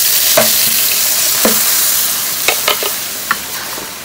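Blended chilli-and-anchovy spice paste hitting hot oil in a wok: a loud sizzle the moment it goes in, slowly dying down, with a few sharp clicks and knocks as it is stirred.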